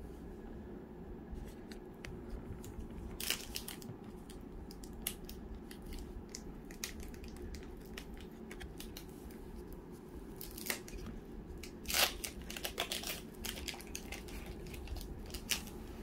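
Trading cards handled and set down on a stack, with crinkling and tearing of a foil card-pack wrapper; a sharp rustle about twelve seconds in is the loudest.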